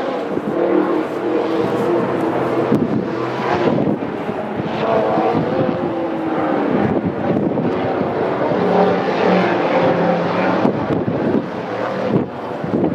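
Engines running in the distance, a dense steady drone whose pitch drifts slowly up and down.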